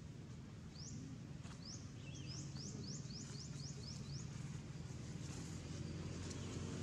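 A bird calling a quick series of about a dozen short, high, upward-sweeping chirps that come closer together, over a low steady hum that grows louder toward the end.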